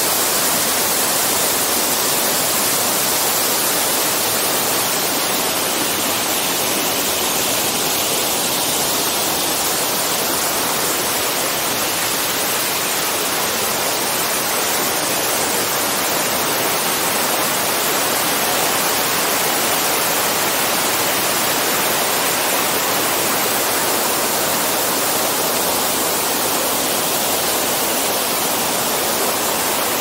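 A waterfall and the mountain stream below it rushing over rocks: a steady, loud noise of falling and running water that does not change.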